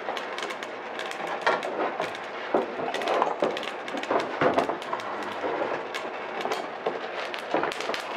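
Coffee beans crackling late in a dark roast in a West Bend Stir Crazy popper under a turbo convection oven: rapid, irregular snaps over a steady rushing background, with a few louder knocks about halfway through.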